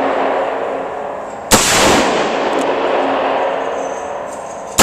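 Ruger GP100 .357 Magnum revolver fired once about a second and a half in, the shot echoing off the indoor range for a few seconds as it dies away. A second shot goes off right at the end.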